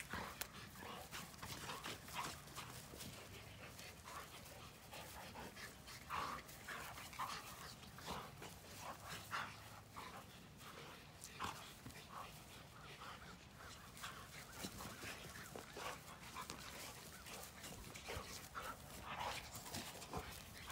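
Faint panting and snuffling breaths from a dog and a small black pig at play, in short irregular bursts.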